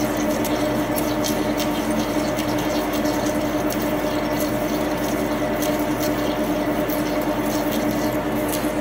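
Metal lathe running steadily while a boring bar cuts inside the spinning workpiece under flood coolant: a constant machine hum over a hiss, with scattered light clicks.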